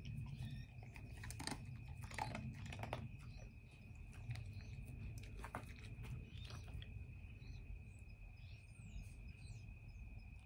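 A dog chewing and crunching treats with its nose inside a basket muzzle, faint and scattered small crunches and clicks. A steady thin high tone sits behind it, and a few faint bird chirps come near the end.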